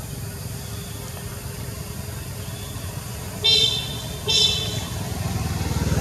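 A vehicle engine runs with a steady low rumble, and a horn gives two short toots about three and a half and four and a half seconds in.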